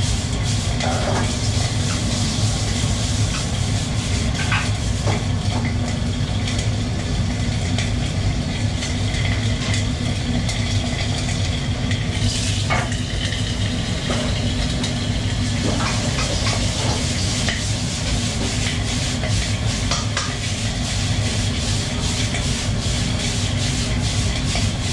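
Stir-frying in a wok over a gas wok burner: food sizzling as it is stirred and tossed, with a metal ladle clanking against the wok now and then. Under it runs a steady low rush from the burner and the kitchen extractor hood.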